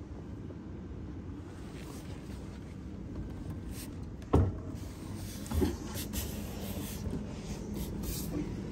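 Steady low background rumble inside a truck cab, with two dull knocks about four and a half and five and a half seconds in.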